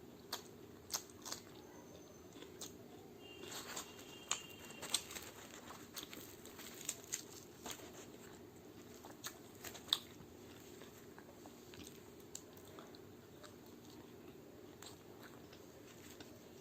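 Close-up chewing and biting of chole bhature with raw onion, chilli and cucumber: crisp crunching clicks scattered through, busiest in the first ten seconds with the loudest about ten seconds in, over a steady low hum.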